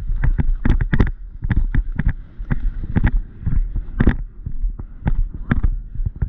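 Horse's hooves splashing through a water jump and then cantering out onto turf, a quick irregular run of thuds and splashes, with wind rumbling on the microphone.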